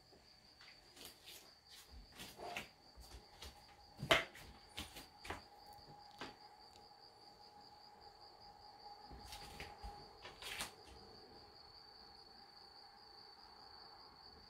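Scattered light clicks and knocks of chopsticks and dishes at a table, the loudest about four seconds in and stopping after about eleven seconds, over a faint steady high-pitched tone.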